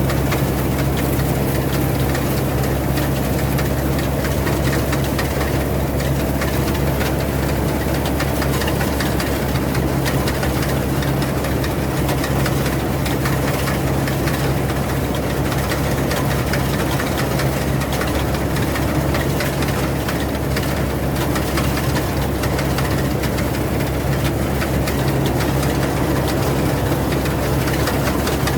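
Rice combine harvester's engine running steadily at a constant speed, with a strong low hum and mechanical rattle.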